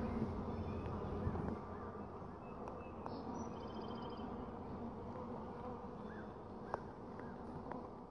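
Honeybees humming steadily in an open hive box, the colony's buzz low and even, with one light click about two-thirds of the way through.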